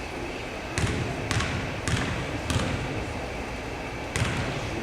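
A basketball being dribbled on the court floor: four bounces about half a second apart, then a pause and one more bounce near the end.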